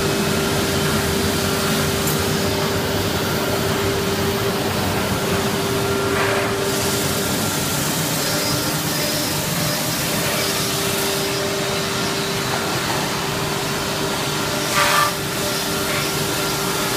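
Wood sanding line for chair parts running: electric motors, conveyors and dust-extraction hoses give a steady machine noise with a constant hum. A short, louder noise stands out near the end.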